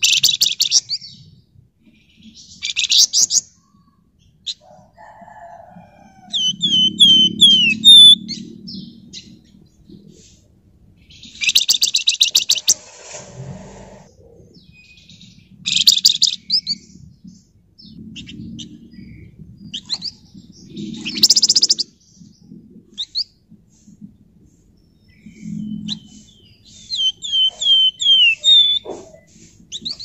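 A caged flamboyan songbird singing in bursts: about five loud, rapid rattling trills, each a second or less, between pauses. Twice it gives a short run of quick downward-slurred whistled notes instead.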